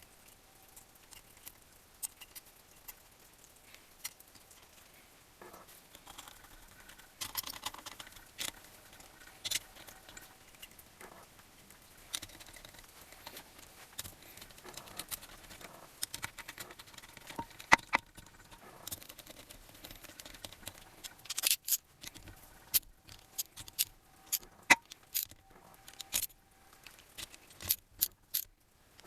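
Small metal tools and engine parts clinking and tapping against each other, an irregular run of sharp clicks and knocks that grows busier and louder over the last several seconds.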